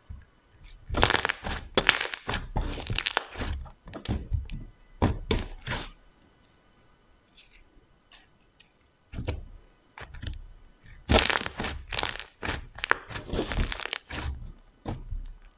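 Thick pink slime being stretched, pulled up and squeezed by hand, giving bursts of crackling pops and squelches as air pockets in it burst. The popping comes in two spells, with a quieter stretch in the middle.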